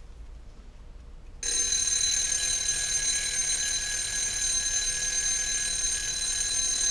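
Wind-up alarm clock's mechanical alarm bell going off, starting suddenly about a second and a half in and ringing steadily and loudly at a high pitch.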